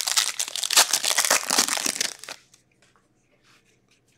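Foil wrapper of a 2023-24 Upper Deck Series Two hockey card pack being torn open and crinkled for about two seconds, then a few faint rustles as the cards are handled.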